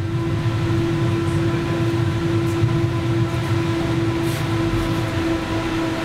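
71-911EM 'Lvyonok' tram running along snow-covered rails, heard from inside the cab: a steady hum over a low rumble of the wheels.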